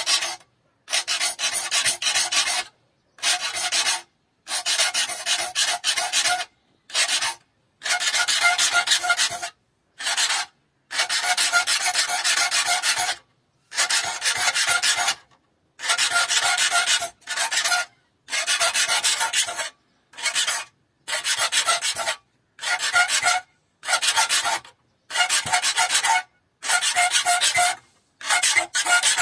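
Hand file rasping across the steel teeth of a hand saw clamped in a saw vise, sharpening the teeth. About twenty strokes, each half a second to two seconds long, with short silent pauses between them and a faint ringing note under each stroke.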